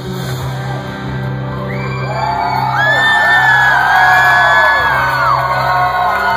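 A rock band playing live through a PA, with amplified guitars and bass holding a steady low note, as the audience screams and whoops. The crowd's screaming swells to its loudest in the middle and then thins out.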